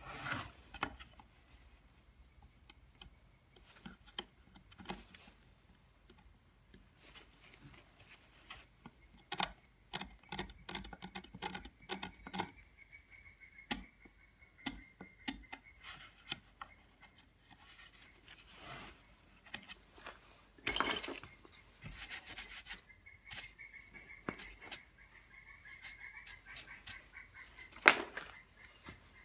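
A hand carving tool scraping the carved surface of a plaque in short, irregular strokes with small clicks. Later a paintbrush sweeps away the carving dust in a scratchy burst, and there is one sharp click near the end.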